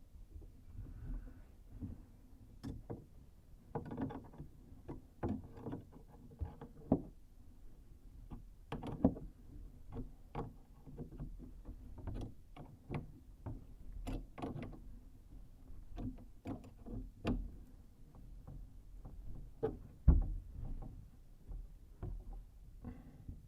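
Irregular clicks, taps and knocks of tools and parts being handled during a kitchen faucet install, with a sharper knock about twenty seconds in.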